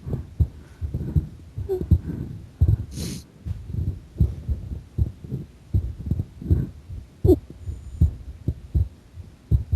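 A woman's heartbeat: a steady, regular run of low, dull thumps, the beats of the heart following one another evenly. A brief scratchy rustle comes about three seconds in.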